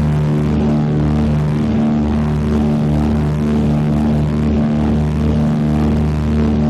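Twin radial piston engines of a Consolidated PBY Catalina flying boat droning steadily in flight, with a slow throb about once a second as the two engines beat against each other.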